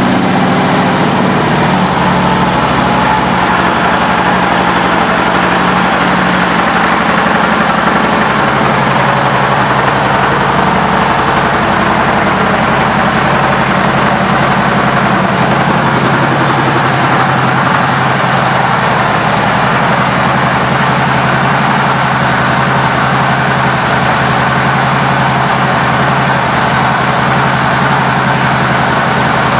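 Harley-Davidson Dyna Switchback's air-cooled V-twin idling steadily through Vance & Hines aftermarket mufflers, just after start-up.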